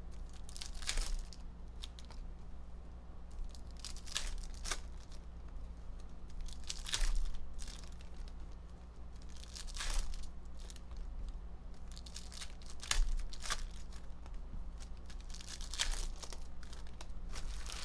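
Trading card pack wrappers being torn open and crinkled by hand, one pack after another: a short rip and crackle every few seconds, about six or seven in all.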